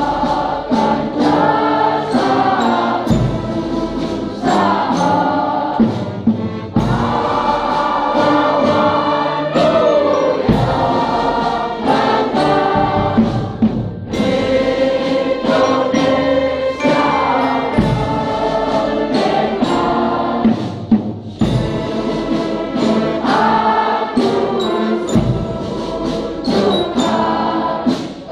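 A large mass choir of schoolchildren singing in long, sustained phrases, accompanied by a brass band with drum beats.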